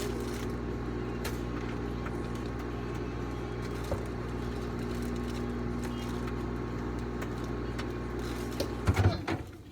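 Microwave oven running with a steady hum. The hum cuts off about nine seconds in, with a few clunks.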